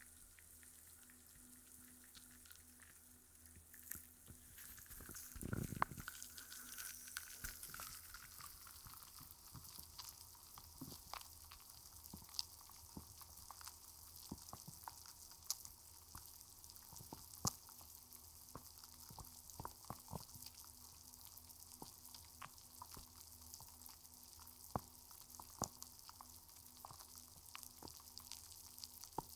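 Carbonated-water ASMR trigger: faint fizzing bubbles crackling and popping close to the microphone's ear, with many tiny pops. A louder bump and swish comes about six seconds in.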